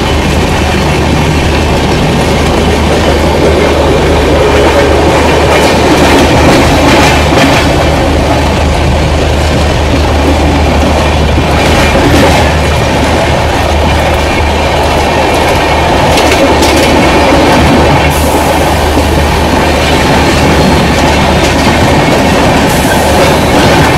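Indian Railways passenger train running along the track, heard from one of its own coaches: a steady rumble of wheels on rail, with clickety-clack over rail joints now and then.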